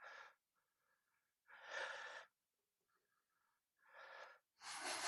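A man breathing audibly, with four short puffs of breath while he strains at close work. The loudest come about two seconds in and at the end.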